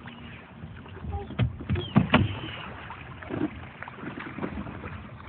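Splashing and knocking around a small boat, with a few sharp thumps, the loudest pair about two seconds in.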